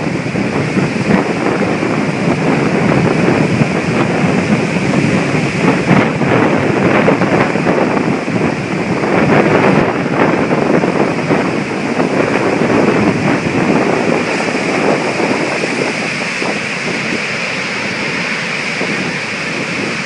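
Hurricane wind buffeting the microphone in uneven gusts, over the steady wash of heavy storm surf breaking.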